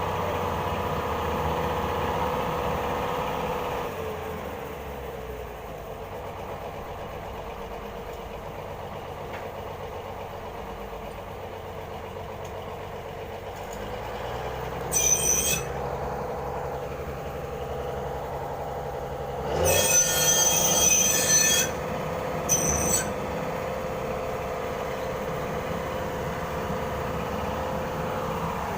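Heavy drilling machine running with a steady mechanical drone. Sharp, high-pitched metal squeals cut in briefly about halfway through, again for about two seconds a little later, and once more briefly after that.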